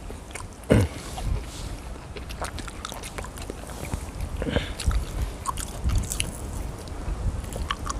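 Close-up eating sounds: people biting and chewing fried food such as crispy pork knuckle and fried chicken, with scattered crunches, clicks and light utensil scrapes. A short loud vocal sound comes about a second in.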